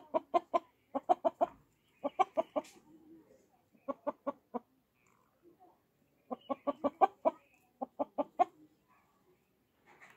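Chicken clucking in quick, sharp runs of four to six clucks, six runs in all, with short pauses between. It is the rapid clucking chickens give in alarm, here at a rat close by.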